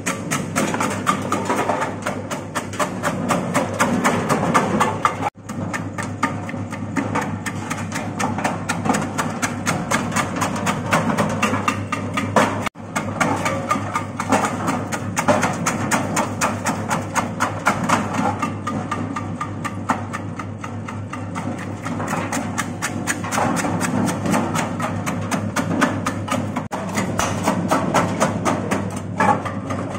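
Motorised rhizome slicing machine running, its blade making rapid, even clicking chops over a steady motor hum as it cuts roots such as ginger or turmeric.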